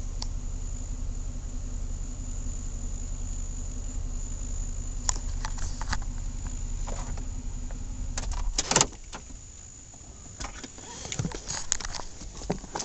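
Car engine idling with a steady low hum, then switched off about two-thirds of the way through with a sharp click. After it stops come scattered clicks and knocks of handling inside the car, like keys and a door being readied. A steady high insect chirring runs underneath.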